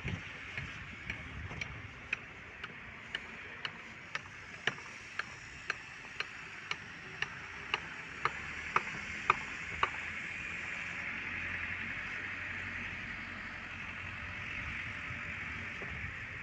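Evenly spaced sharp, ringing knocks, about two a second, growing louder and stopping about ten seconds in, followed by a steady hiss.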